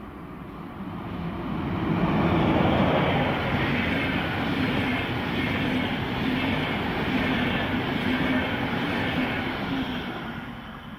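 Locomotive-hauled Intercity passenger train, a red electric locomotive at its head, passing at speed. The noise swells as the locomotive arrives, loudest about two seconds in. A steady rolling rumble of the coaches' wheels on the rails follows and fades as the last coach passes near the end.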